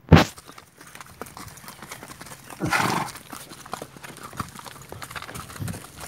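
A ridden horse walking, its hooves clopping on a dirt track. There is a sharp knock right at the start, and a louder, rough blowing sound lasting about half a second around three seconds in.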